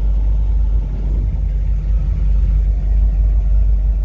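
Chinook camper's engine idling, a steady low rumble.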